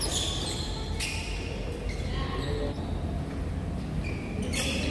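Badminton rackets striking a shuttlecock in a doubles rally: a sharp hit at the start, another about a second in, and a few more near the end, over a steady low hum.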